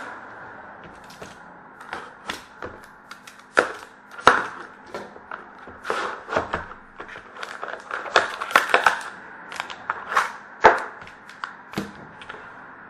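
A cardboard trading-card box being handled and opened on a glass tabletop: irregular sharp taps, clicks and knocks of the box, its lid and the packs against the glass, with rustling of the packaging. The busiest run of knocks comes about two-thirds of the way through.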